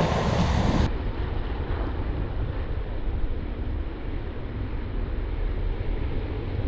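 Small waves breaking and surf washing over the shallows, with wind rumbling on the microphone.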